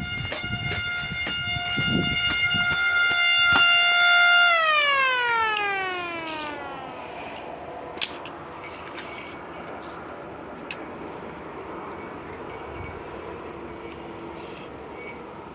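Small motor-driven siren sounding a steady high note that grows louder. About four and a half seconds in, power is cut and it winds down, its pitch falling over a couple of seconds and then fading out slowly as the rotor coasts to a stop. There is a single sharp click about eight seconds in.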